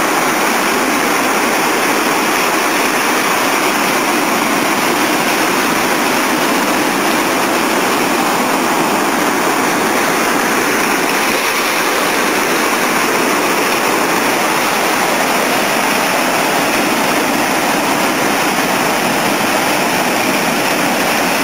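Sea surf washing and foaming through a channel between coastal rocks: a loud, steady rush of white water.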